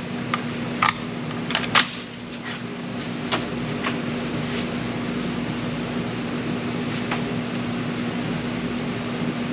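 Sharp clicks of a Springfield Hellion 5.56 bullpup rifle being handled as a fresh magazine goes in: several in the first few seconds, one more later. No shot fires, because the safety is on. A steady ventilation-type hum with a constant low tone runs underneath.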